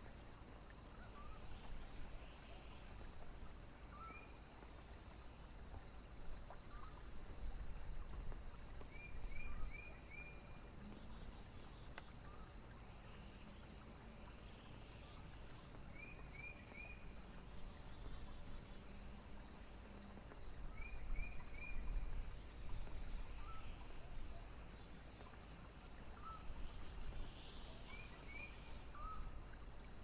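Wind rumbling on the microphone and gusting up twice, with a cricket chirping steadily at about two or three chirps a second. Short groups of three or four fainter, lower chirps come now and then.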